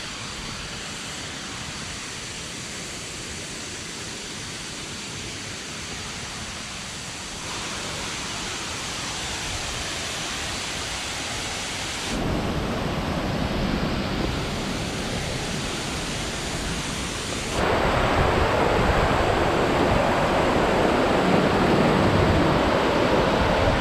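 Steady rushing outdoor noise, growing louder in abrupt steps about 7, 12 and 17 seconds in.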